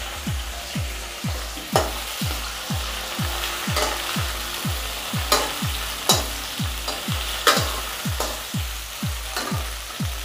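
Chopped onion frying in hot oil in a kadhai, sizzling as it is stirred with a ladle, with a sharp knock of the ladle against the pan every second or two. Under it runs a steady low beat of background music, about two thumps a second.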